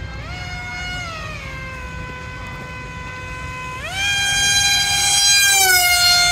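Whine of a small RC F-22 model jet in flight. Its pitch sags slightly and holds, then rises sharply and grows louder about four seconds in as the throttle is opened, and dips a little near the end.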